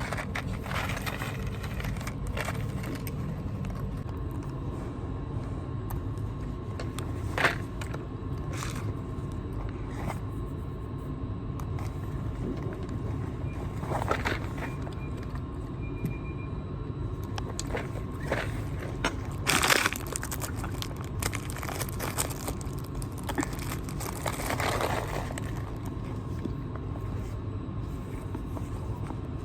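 A steady low rumble with scattered clicks, rustles and handling noises over it.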